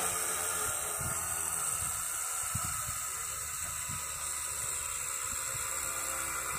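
Orb Egis Beyblade Burst top spinning on a plastic stadium floor: a steady whirring hiss with a few faint light ticks.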